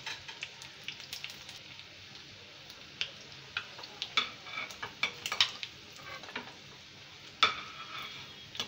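Battered egg pieces deep-frying in hot oil with a steady sizzle, while metal tongs lift them out, clicking sharply against the pan many times, the loudest click near the end.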